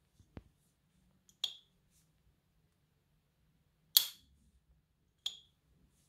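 S.T. Dupont lighter's hinged lid flicked open with its sharp metallic 'ping', a click with a short high ring, about one and a half seconds in and again just after five seconds. Between them, about four seconds in, a louder, fuller clack as the lid is snapped shut.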